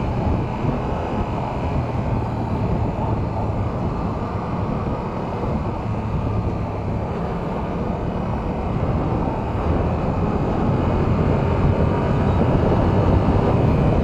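Yamaha R7's 689 cc parallel-twin engine running steadily at expressway speed, mixed with wind rushing past the rider's helmet. It grows a little louder near the end.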